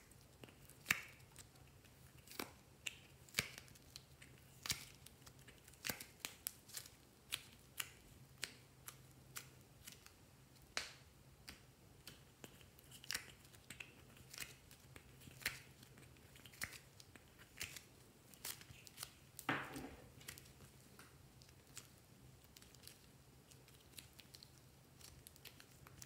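Faint, irregular clicks and taps of fingers and nails working a hard plastic mold while soft clay is peeled out of it, with one longer scraping sound a little past two-thirds through.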